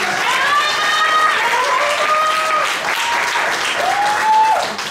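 Audience applauding steadily, with several long cheering whoops rising and falling over the clapping.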